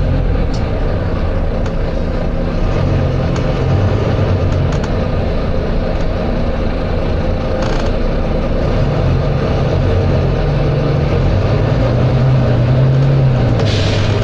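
Volvo B9TL double-decker bus running, heard from on board: a steady engine drone with road noise, its pitch rising and falling. Short hisses of air come a little past halfway and again near the end.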